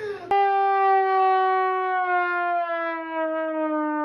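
A single long, held horn-like tone that slowly falls in pitch and then cuts off abruptly, like a played-in sound effect.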